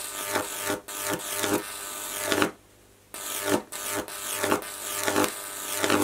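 High-voltage arc of a Jacob's ladder fed by a microwave oven transformer, buzzing loudly and harshly with a candle flame under the electrodes. The arc strikes at the bottom, climbs, then snaps off and re-strikes roughly every half second to second, with one brief silent pause about two and a half seconds in.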